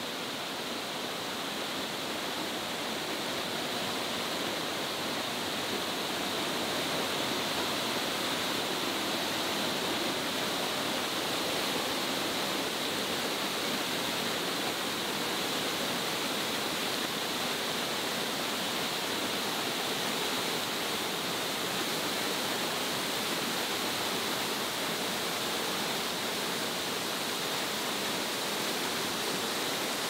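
Low waterfall's water pouring and splashing into the pool below, a steady rushing noise that grows a little louder over the first few seconds and then holds.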